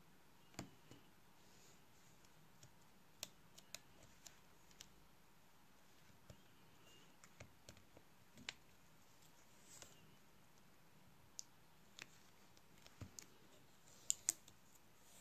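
Scattered small clicks and taps from a roll of adhesive tape being unrolled and pressed down by fingertips along the metal edge of an LCD panel, a second or so apart, with two sharper clicks close together near the end, over near silence.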